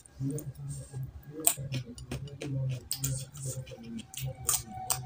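Close-miked chewing and eating by hand: wet mouth clicks and lip smacks, several sharp ones a second or so apart, over low mouth noise.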